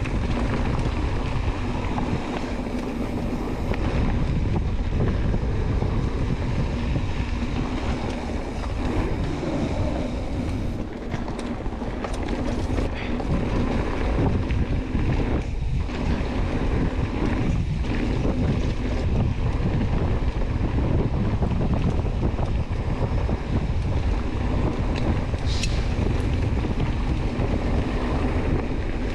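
Wind rushing over the microphone of a camera on a mountain biker riding fast down a trail, mixed with the bike's tyres rolling and rattling over the dirt; steady and loud throughout, with a few brief knocks.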